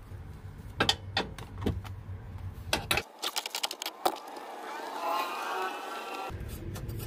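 Scattered light metallic clicks and clinks as a bracket bolt is worked loose by hand and tools knock against the metal under a truck's dashboard.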